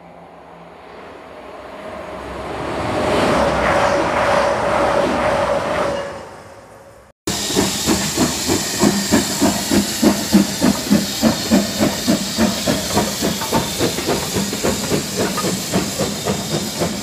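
A train passing, its noise swelling and then fading, with a steady tone in it. About seven seconds in it cuts abruptly to a BR Standard Class 4 tank steam locomotive, No. 80097, working a train. It chuffs in an even rhythm of about two exhaust beats a second, with steam hiss.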